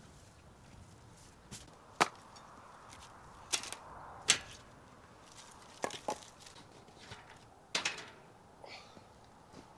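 Irregular sharp wooden knocks and clacks, about half a dozen strikes spaced unevenly, the loudest a little past four seconds in, typical of pieces of firewood knocking together as they are handled.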